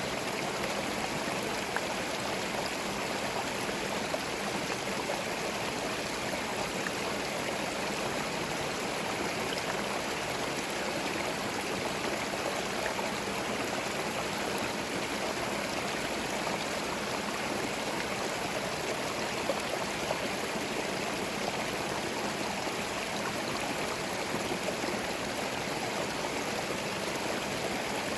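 Small forest stream running over stones, a steady babbling rush of water.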